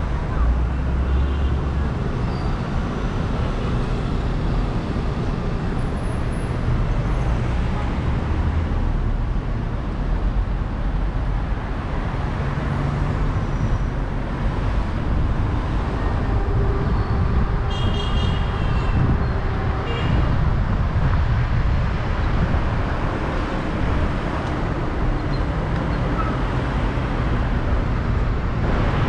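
Steady road-traffic noise from cars on a street, with a brief high-pitched tone about eighteen seconds in.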